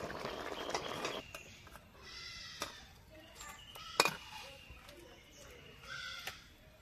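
The hot curry sizzles in the wok for about the first second, then a metal spatula scrapes and clicks against the wok as the curry is served into a bowl, with the sharpest knock about four seconds in. A few short animal calls sound in the background.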